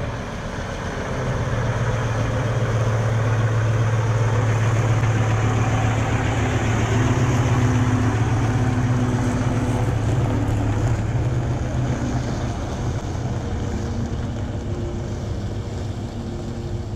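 Vintage double-decker bus's diesel engine running with a steady low hum. It grows louder about two seconds in and eases off over the last few seconds as the bus moves away.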